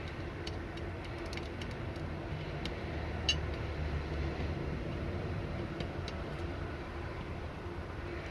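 Light, scattered clicks of small metal parts and tools being worked loose from an airsoft gearbox's trigger assembly, over a steady low background rumble.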